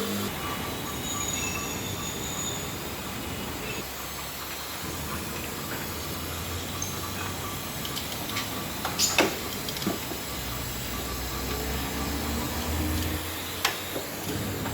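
Steady mechanical hum and hiss of a service workshop, with a few sharp clicks, the loudest about nine seconds in.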